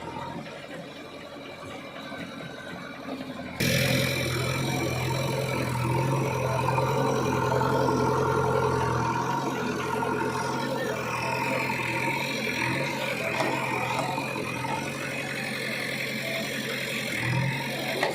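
Heavy diesel machinery engine running steadily, jumping suddenly louder about three and a half seconds in.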